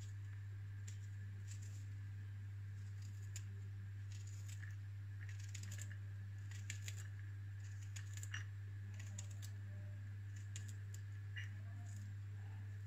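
Irregular small clicks of a kitchen knife slicing garlic cloves held in the hand, over a steady low hum.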